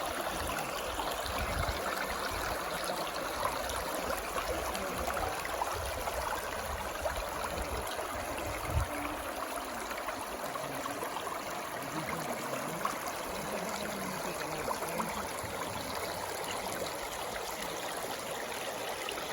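Water flowing steadily in a stream, with an even rushing and trickling. Irregular low rumbling bumps come and go during the first half.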